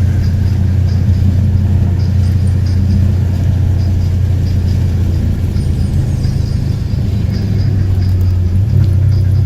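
A vehicle engine running steadily at speed, a low drone under road and wind noise. Its pitch steps up a little near the end.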